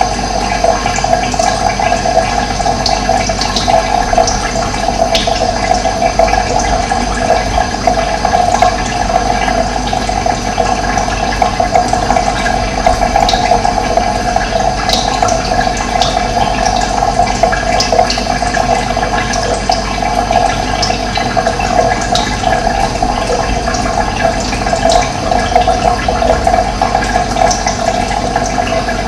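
Running water rushing steadily, with short bird chirps scattered over it.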